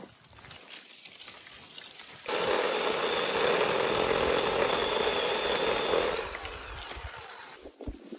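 Greenworks battery-powered electric chainsaw cutting through a mesquite trunk: it starts about two seconds in, runs steadily for about four seconds, then winds down and stops.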